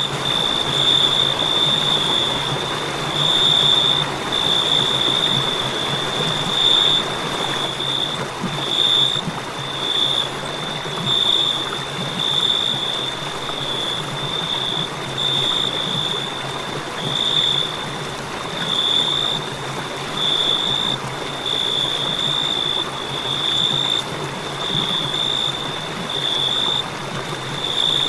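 Crickets trilling in one continuous high-pitched tone that swells and fades in a regular pulse, roughly once a second, over a steady background hiss.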